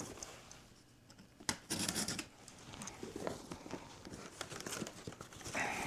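Packaging on a golf club box being torn and crinkled while it is opened: a loud tearing rustle about one and a half seconds in, then lighter rustling and handling.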